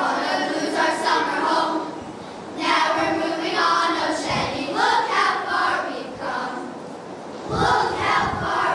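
A choir of girls singing together, unaccompanied, in phrases with short breaks between them; the song is the camp alma mater.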